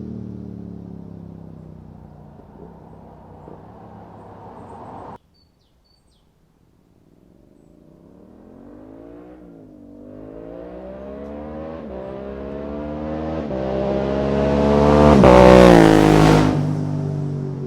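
Yamaha MT-07's parallel-twin engine through an Akrapovic full carbon exhaust with the dB killer removed, passing by twice. First it fades away until a sudden cut to silence. Then a second pass accelerates hard, its pitch climbing in steps with brief dips at the quickshifted upshifts, is loudest about three quarters of the way in, and drops in pitch as it goes away.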